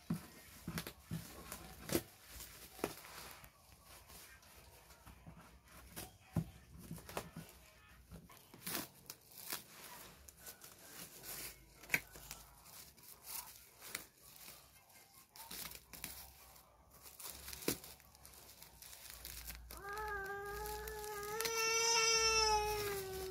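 Scissors snipping and tearing through black bubble wrap and packing tape, with plastic crinkling and irregular clicks and rustles. Near the end a long drawn-out cry rises slightly, holds, and is the loudest sound.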